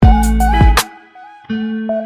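Intro music with a beat and held melody notes. It drops out for about half a second near the middle.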